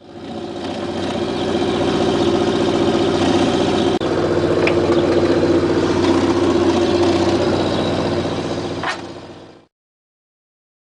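Oldsmobile Toronado's V8 running steadily with its carburetor freshly freed from being seized and reinstalled. The sound cuts off abruptly about a second and a half before the end.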